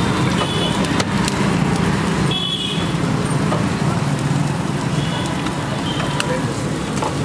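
Busy roadside ambience: steady traffic noise and background voices over a constant low hum, with a few scattered clicks.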